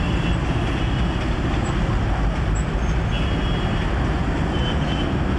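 Steady city traffic rumble, dense and unbroken, with a few faint brief high tones over it.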